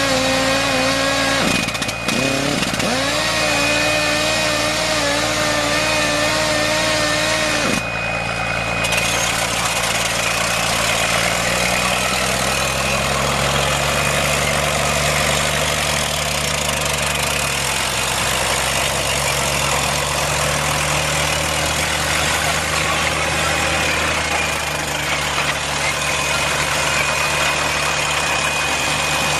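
Ram track drill and compressor rig running. A higher-pitched engine note dips briefly about two seconds in and cuts off near eight seconds, leaving a deeper engine running steadily with slow rises and falls in pitch.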